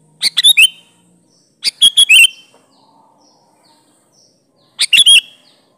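Sooty-headed bulbul (kutilang) singing three short phrases of quick notes, with faint chirps in the background between them.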